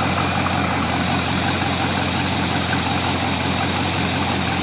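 Freshly rebuilt Ford 351 Cleveland V8 idling steadily.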